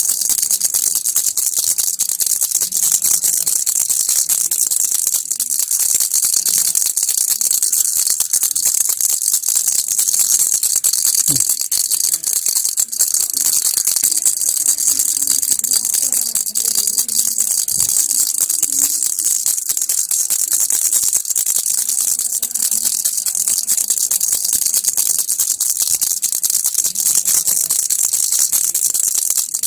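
Baby rattle being shaken continuously: a dense, steady rattling with no pauses.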